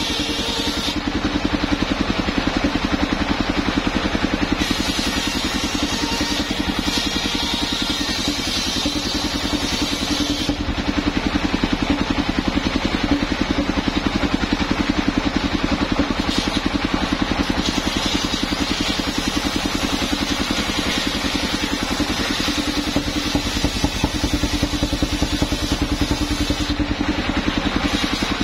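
Homemade engine-driven circular sawmill running steadily, its large circular blade ripping planks lengthwise; the higher ripping noise of the cut comes and goes as boards are fed through.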